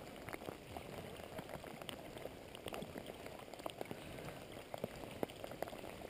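Rain falling steadily: a soft hiss dotted with many small, irregular drop ticks.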